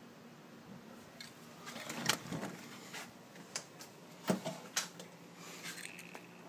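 A few light clicks and knocks amid faint rustling, the two sharpest about two seconds in and a little after four seconds.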